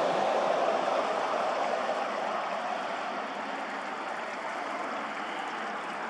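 Steady rushing noise, easing slightly over the first few seconds.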